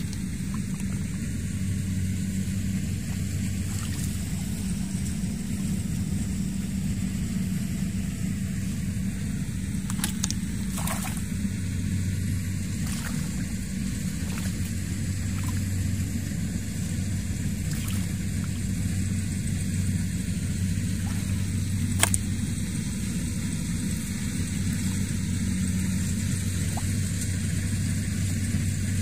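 An engine running steadily at an even pitch, with a few brief sharp clicks over it, the sharpest about 22 seconds in.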